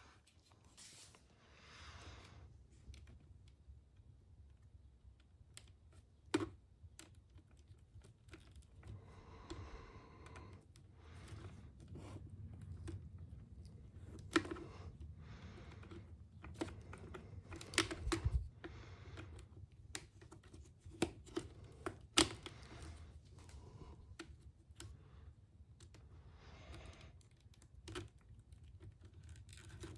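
Irregular small clicks and taps of flush-cut nippers and pliers working at a stuck, damaged plastic part on an RC truck's axle. The part is not coming free.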